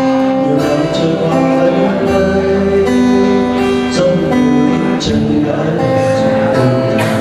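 Acoustic guitar strummed in a steady rhythm, an instrumental passage between sung lines of a song.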